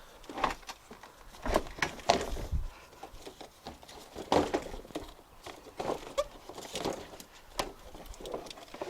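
Irregular light clicks, taps and scuffs of hand and tool work on plastic bumper fixings, a few each second with no steady rhythm.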